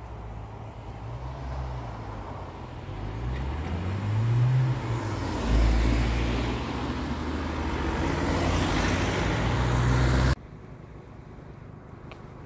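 Cars driving past close by, their engines rising and falling in pitch as they pull away and cross; the sound gets louder as they pass, then cuts off suddenly about ten seconds in, leaving only quiet background.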